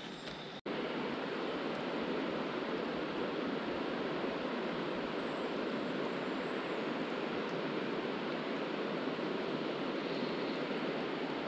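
Steady rushing of river water running over shallows. It comes in suddenly after a brief gap about half a second in.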